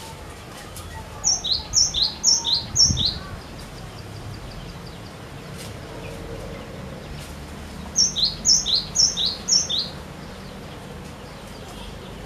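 Cinereous tit (glatik batu) singing: two bursts of song several seconds apart, each of four quick repeated two-note units, a high note followed by a lower, dropping one.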